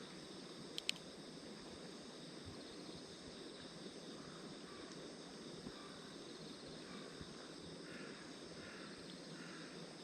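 Small wood fire burning in a compact B6-size tabletop grill: a faint steady rustle with two sharp crackles about a second in.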